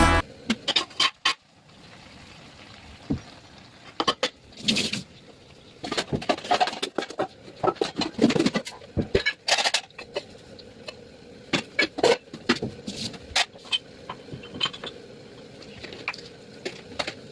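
Irregular clicks and knocks from kitchen utensils and cookware being handled while cooking. They come busiest about six to nine seconds in.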